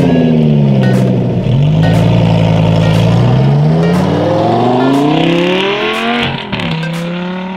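Lamborghini Gallardo LP550-2's V10 engine, its revs falling back from a flare in the first second or so, then rising steadily as the car accelerates away. The pitch drops sharply a little after six seconds in, and the note carries on more quietly as the car moves off.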